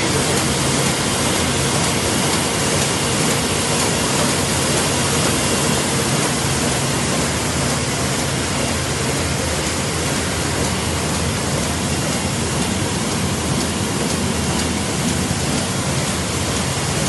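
1988 Komori Lithrone L540LX sheet-fed offset press running, a steady, loud, even machine noise with a low hum underneath.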